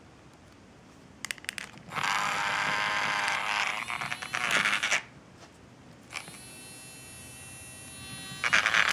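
A few small clicks, then the battery-powered motor of a Hamleys Squiddy bath toy whirring loudly for about three seconds as it spins its tentacles. It then runs more quietly with a steady whine, and is louder again near the end.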